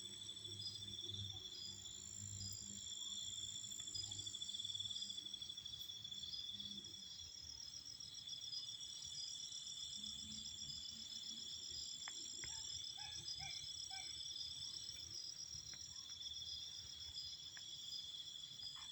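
Night insect chorus: several crickets trilling steadily at different high pitches, each trill a fast pulsing. Under it a low pulsing rumble fades out about a third of the way in and returns briefly, and a few faint short calls sound about two-thirds of the way in.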